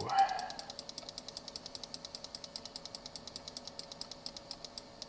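Rapid, even clicking at about ten clicks a second, faint and mechanical, which stops suddenly near the end.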